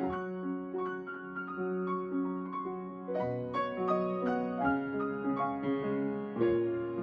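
Solo piano playing a pop-song arrangement: a melody over sustained chords, with a new chord entering about three seconds in.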